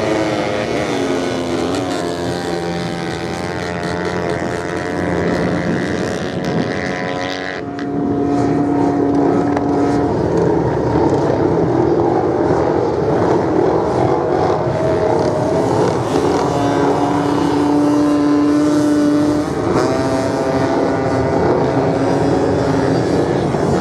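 Dirt bike engines revving up and down as the bikes race around the course, their pitch rising and falling. Now and then one engine holds a steady note for a couple of seconds.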